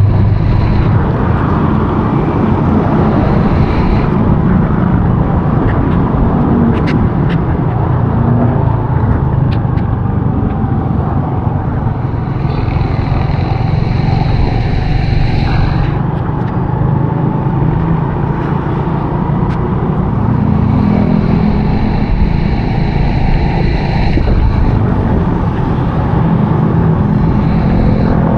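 Honda RSX 110 motorcycle's small single-cylinder engine running on the move, under a loud, steady rush of wind and road noise.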